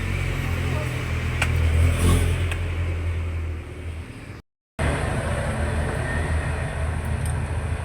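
Steady low engine rumble, with a few light clicks in the first half, broken by a brief silent gap a little past halfway.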